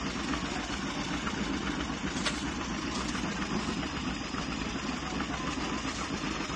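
A 1948 John Deere B tractor's two-cylinder engine running steadily.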